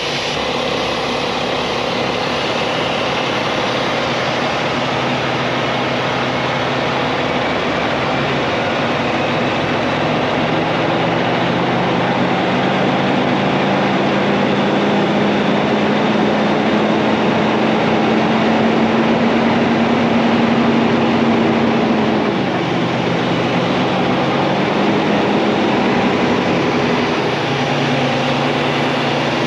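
Semi-truck diesel engine under way at low speed. Its revs climb slowly, drop sharply about three-quarters of the way through, then pick up again.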